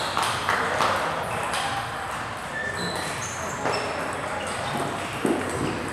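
Table tennis balls clicking off paddles and tables, with irregular hits and short pings over a background murmur of voices.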